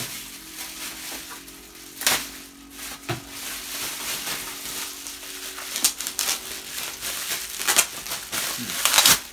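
Thin plastic bag crinkling and rustling as it is handled and pulled off a jar, with sharper crackles about two seconds in, around six seconds in and near the end.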